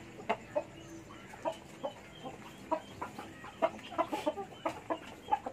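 Chickens clucking: short calls in quick succession, a few each second.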